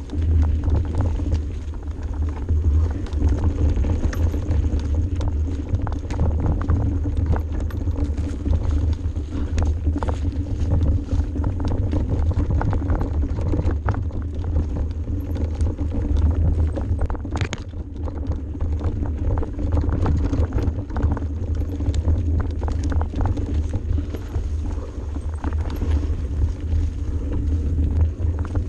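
Mountain bike riding fast down a dirt and rock singletrack: tyres rolling over the trail with constant rattling and knocking from the bike over rough ground, under heavy wind rumble on the microphone.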